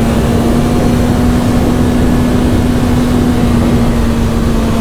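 Motorcycle engine running at a steady speed while riding, holding one even pitch, with wind rumble underneath.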